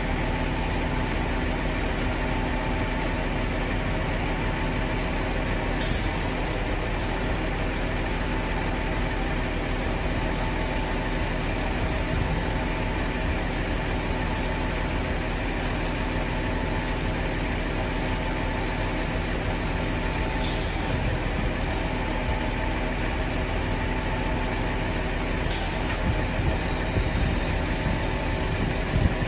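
Car transporter truck's diesel engine running steadily at idle while the trailer's hydraulics move the upper deck. Three short hisses of air cut through, about six, twenty and twenty-five seconds in.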